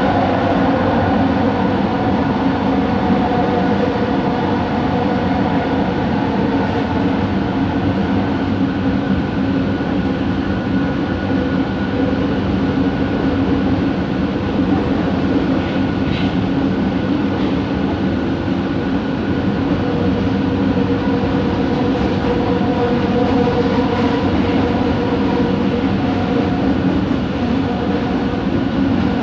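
Bombardier Innovia ART 200 metro train running, heard from inside the car: a steady rumble with a hum of several held tones from its linear induction motors. The tones slide down in pitch in the first few seconds, then hold steady.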